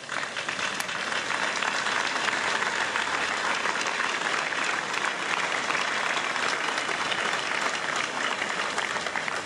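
A crowd applauding, with dense, steady clapping for about nine seconds.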